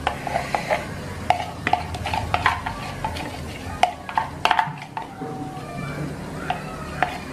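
Metal spoon scraping cake batter out of a plastic bowl into a mug: a run of irregular taps and scrapes, many with a short ring.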